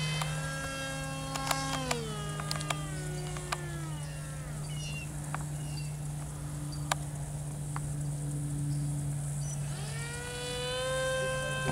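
Electric motors and propellers of two small Depron foam RC planes whining, with the throttle shifting. Both pitches drop about two to four seconds in, one keeps humming low, and a motor spools back up sharply near the end.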